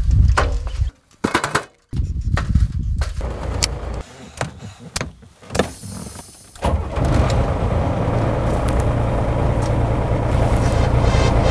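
Clicks, knocks and rustles of climbing into a monster truck's cab and handling its controls, then, about seven seconds in, the monster truck's engine running with a steady low drone.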